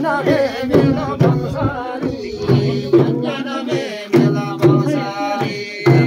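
Tamang damphu frame drums beaten in a steady rhythm while a group of men sing along.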